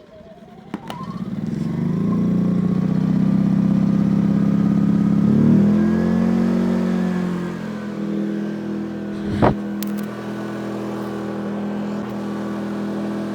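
Brand-new Yamaha EF2200 generator's small single-cylinder engine pull-started on its first start, catching about a second in and running up to speed. It runs loudly, then its note shifts and settles a little lower partway through and keeps running steadily. A single sharp knock comes about nine and a half seconds in.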